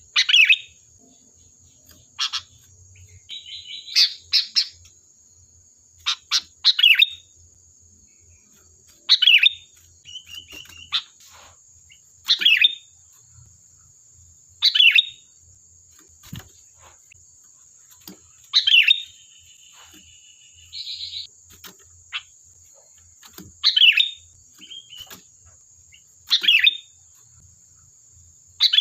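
Sooty-headed bulbul (kutilang) calling: short, loud chattering phrases every two to three seconds, a few of them running into a brief buzzy trill.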